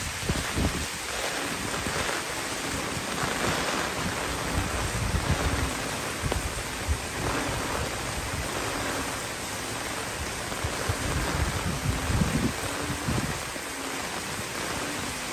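Steady typhoon rain and gusting wind, banana leaves thrashing, with gusts buffeting the microphone in low rumbles now and then.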